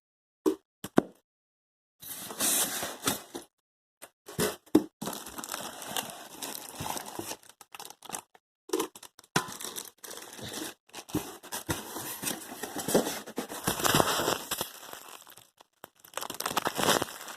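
Packing materials being pulled out of a ceiling-fan box: tearing and crinkling of paper and plastic wrapping, with occasional knocks of parts being handled. It starts about two seconds in, after two short clicks.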